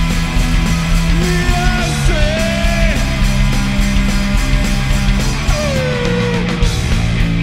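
Rock band playing live: distorted guitars and bass hold low chords that change a few times, over a steady drumbeat, with a lead melody sliding up and down in pitch.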